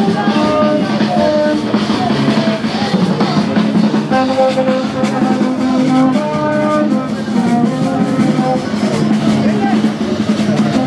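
Music with drums and a melody of held notes, loud and continuous.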